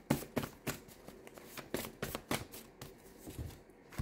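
A deck of tarot cards being handled and shuffled by hand: an uneven run of short card snaps and slaps, about a dozen.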